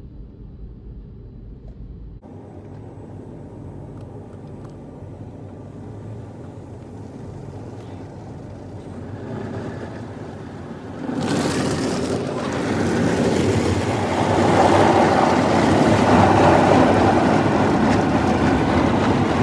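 Automatic drive-through car wash heard from inside the car: a low, steady rush of the wash that builds slowly, then turns suddenly much louder and hissier about eleven seconds in.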